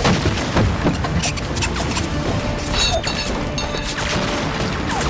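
Battle sound effects in a war film: repeated bangs of gunfire and explosion booms over a dramatic music score, with several sharp impacts in the first second.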